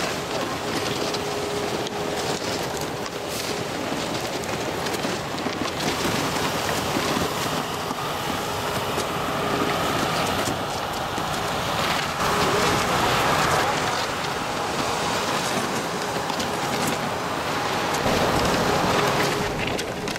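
Snowmaking machine (snow gun) running: a steady, loud hiss of spray, with a faint steady hum that comes and goes.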